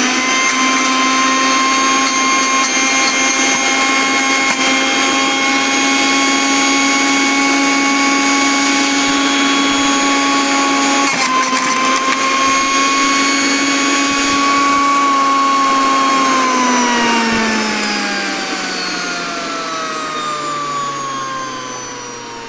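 Motor of a Sujata Powermatic Plus 900-watt juicer mixer grinder spinning its centrifugal juicer basket at speed with a steady high whine. About 16 seconds in the pitch falls smoothly and the sound fades as the motor coasts down.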